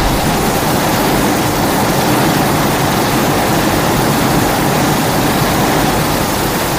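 A loud, steady rushing noise from a film sound effect, even and without any pitch.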